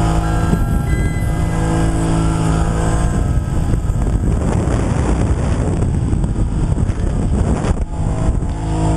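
Motorboat running at speed across open water, its engine drone mixed with heavy wind rushing over the microphone.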